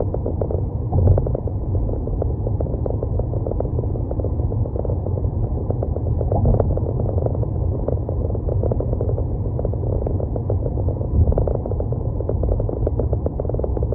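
Car driving: a steady low rumble of engine and road noise, with faint small ticks through it.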